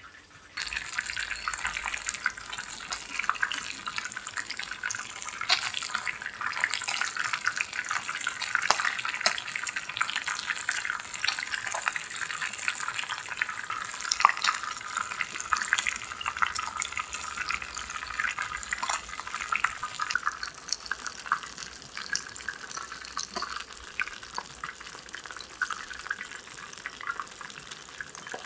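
Skin-on fish loin searing in a hot pan, sizzling with rapid crackling pops as the fat renders out. The sound starts abruptly about half a second in and eases slightly toward the end.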